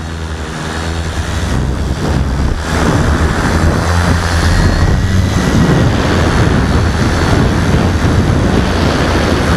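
Large quadcopter's four brushless motors (RC Timer 5010, 360 KV) spinning 17x5 carbon-fibre propellers, heard from the onboard camera: a steady drone with a faint high whine. It grows louder over the first three seconds, then holds steady.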